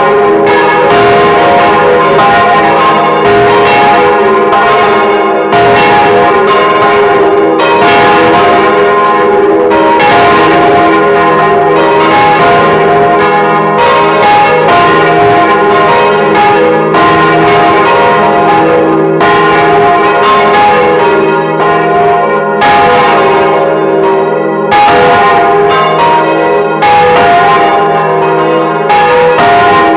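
Several bells from the ring of four Causard-cast bells (notes F, A-flat, B-flat, C) swing and ring together at close range inside the belfry. Their clapper strokes overlap at irregular intervals, keeping up a continuous loud peal.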